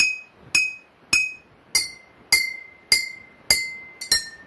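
Metal spoon tapping water-filled glass jars, a little under twice a second, each tap ringing a clear bell-like note. The note steps down twice as the spoon moves to the next jar. The jars' water levels tune their pitch.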